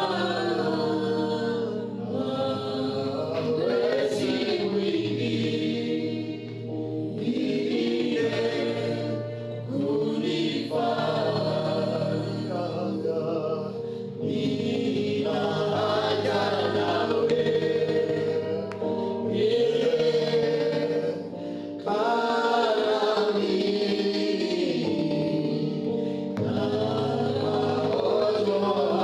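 A group of voices singing a gospel worship song over steady held accompaniment chords, in phrases a few seconds long.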